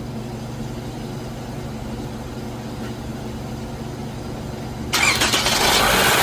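A steady low hum, then about five seconds in the 2011 Toyota Camry's engine starts and runs with its serpentine belt removed. With the belt off no whine is heard, which points to one of the belt-driven pulleys.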